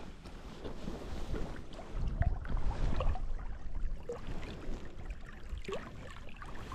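Wind rumbling in gusts on the microphone over gentle water lapping, with small irregular clicks and ticks.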